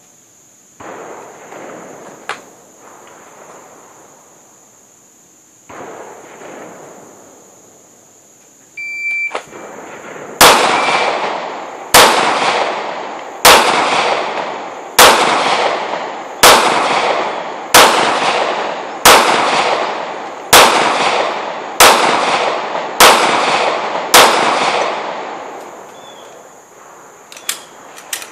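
Pistol shots fired at a steady cadence, about eleven rounds roughly one and a half seconds apart, each trailing off in a long echo. A short beep sounds about a second before the first shot.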